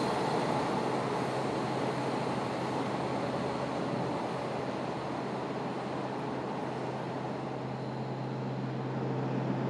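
JR Hokkaido KiHa 183 series diesel limited-express train pulling away, its running noise slowly fading as it recedes. A steady low hum comes up beneath it in the second half.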